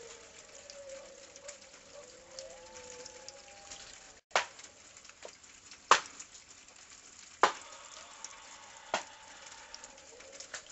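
Steady hiss of a security camera's microphone, with a faint wavering tone during the first three seconds. After a brief dropout, four sharp clicks or knocks follow, about a second and a half apart.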